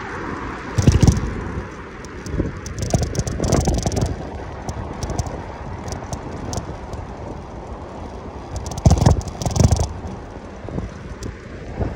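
Wind rumbling on the microphone of a moving bike, in gusts that swell about a second in and again around nine seconds, over steady road and traffic noise, with scattered rattles and clicks from the ride over the road surface.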